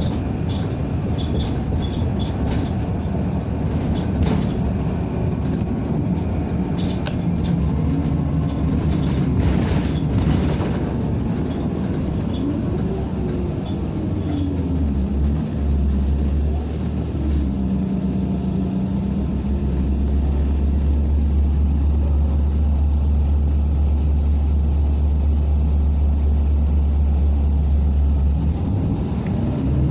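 Interior of a NABI 45C-LFW compressed-natural-gas city bus under way: the engine and road noise run continuously, with clicks and rattles from the cabin in the first part. About halfway the engine note rises and then falls, and after that a steady low drone runs.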